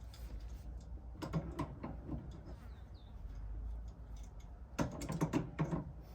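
Two short spells of quick, irregular clicking and light metal clatter from hand tools and suspension parts being worked on, over a low steady hum.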